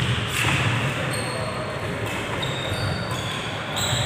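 Badminton doubles rally on a wooden indoor court: rackets striking the shuttlecock and players' feet thudding on the floor, with faint voices in the background.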